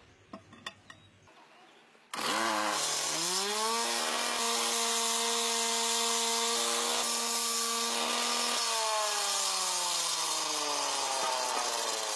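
A power tool motor starts about two seconds in with a loud hiss. Its pitch rises quickly to full speed, holds steady for several seconds, then falls slowly as it winds down near the end.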